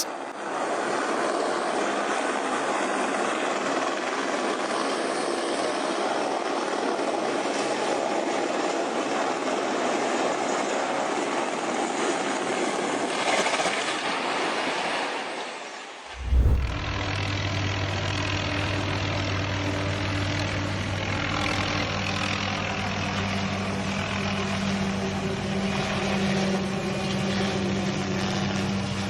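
Helicopter noise over two clips: first a steady, dense rush. After a cut about sixteen seconds in come a thump and a steady low engine and rotor hum.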